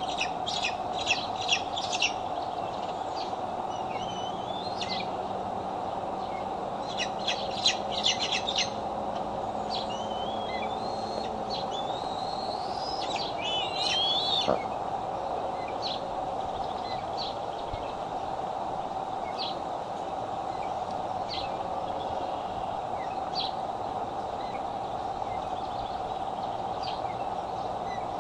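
Bald eagles chittering: a quick run of high-pitched chips near the start and another about seven seconds in, then rising, wavering whistled calls around twelve to fourteen seconds and scattered single chirps after. A steady low hum runs underneath.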